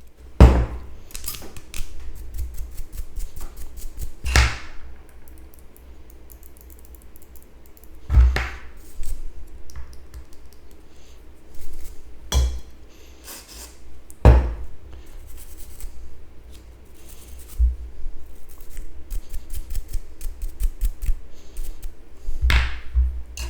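Small plastic clicks and scratching from the parts of an opened computer mouse being handled and cleaned, with about half a dozen louder knocks along the way.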